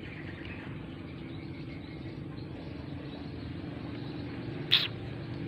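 A low, steady engine hum, rising slightly in pitch during the second half. A single sharp click comes a little before the end.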